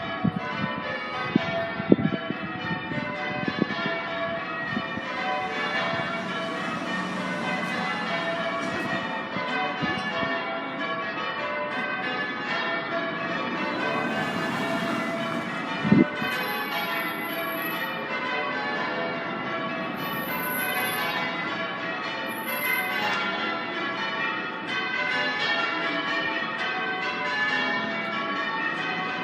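Church bells rung in change ringing, the bells striking one after another in a continuous, even round. Two brief sharp thumps break in, about two seconds in and again around halfway.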